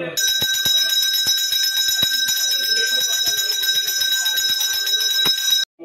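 Brass temple hand bell rung continuously during the puja: a steady ringing with many quick strikes. It cuts off suddenly near the end.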